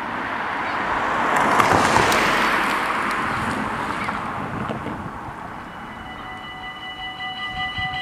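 A car drives over the crossing, its tyre and engine noise swelling to a peak about two seconds in and then fading. About six seconds in, the AHOB level crossing's warning bells start up: a rapid, repeating ring of several high tones that grows louder, the signal that a train is approaching and the barriers are about to come down.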